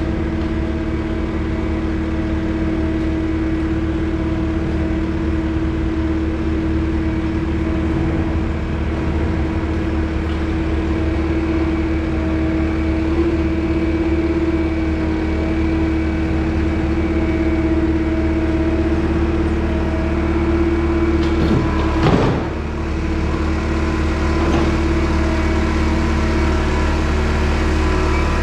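An engine running steadily at a constant speed, with a brief swell about 22 seconds in.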